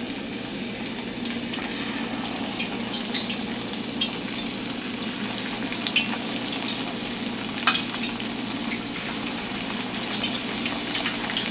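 Thin green plantain slices frying in hot oil in a stainless steel pan: a steady sizzle dotted with frequent small crackles and pops.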